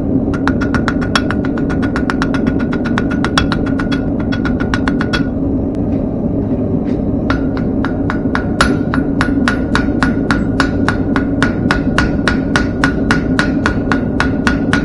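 Blacksmith's hammer striking hot thin square steel on an anvil in a quick steady rhythm, about three to four blows a second, each with a high ring from the anvil, while tapering a point. The hammering pauses for about two seconds midway, then resumes. A steady low hum runs underneath.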